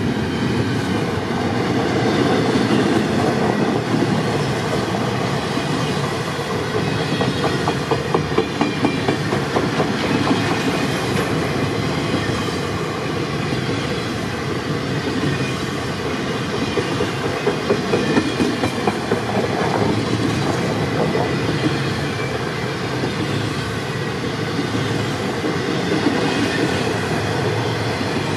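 Intermodal double-stack freight cars rolling past close by: a steady rolling rumble of steel wheels on rail, with quick runs of wheel clicks over rail joints about eight seconds in and again about eighteen seconds in.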